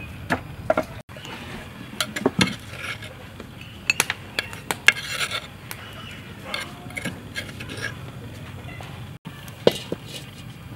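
A couple of knocks from a wooden pestle in a wooden mortar, then a metal spoon scraping and tapping a ground paste out of the mortar onto a ceramic plate, with irregular clinks and scrapes.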